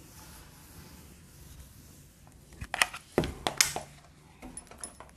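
Whiteboard duster wiping across a whiteboard, a soft scrubbing, followed by a few sharp knocks and clicks about three seconds in.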